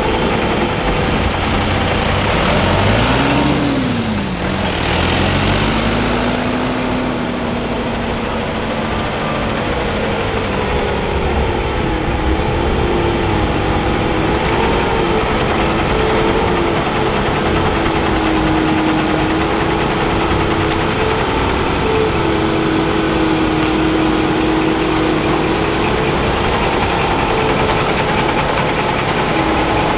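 Heavy truck's diesel engine pulling a house-laden trailer away at low speed. Its note rises and falls a few seconds in, over a brief hiss, then holds a fairly steady low running note.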